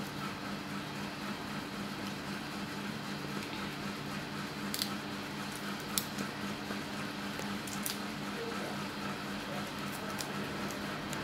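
Fingers peeling the shells off cooked whole shrimp: soft wet squishing and crackling, with a few sharp clicks as shell pieces snap, over a steady low hum.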